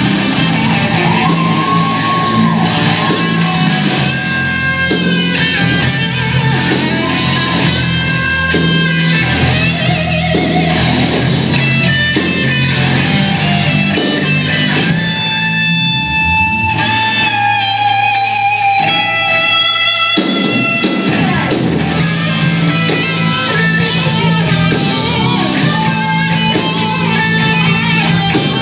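Blues-rock band playing, with electric guitar lead lines over bass and drums. About halfway through, the drums drop out for a few seconds, leaving a long held, bent guitar note. Then the full band comes back in.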